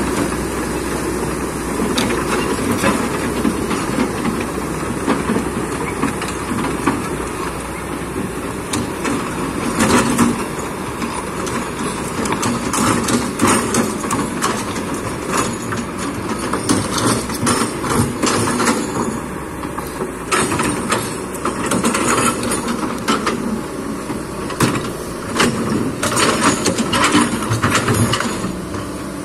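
Kobelco hydraulic excavator's diesel engine running steadily under load, with repeated knocks and clatter of stones and the steel bucket through the second half.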